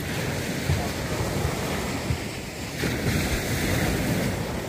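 Small surf breaking and washing up a sandy beach, with wind buffeting the microphone. A louder wash of water comes about three seconds in.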